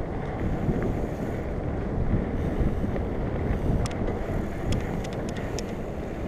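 Wind rushing over the microphone of a mountain biker riding fast along a dirt trail, with tyre rumble and a few short sharp clicks and rattles from the bike.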